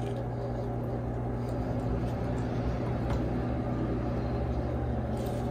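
Steady low machine hum, even and unchanging, with a few faint light ticks over it.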